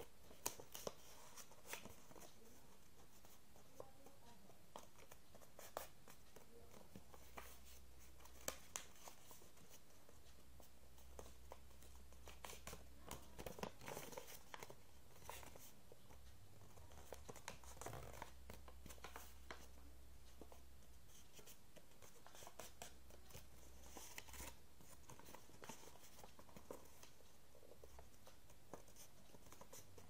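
Faint, scattered crinkles and taps of a sheet of origami paper being folded and creased by hand.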